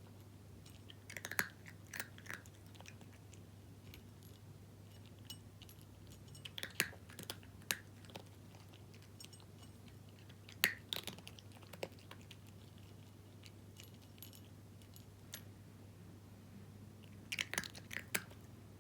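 A cat crunching dry kibble, in four short bouts of crisp crunches a few seconds apart, over a steady low hum.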